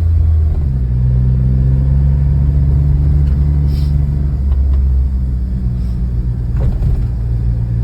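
A car running, a steady low rumble with a drone that shifts slightly in pitch.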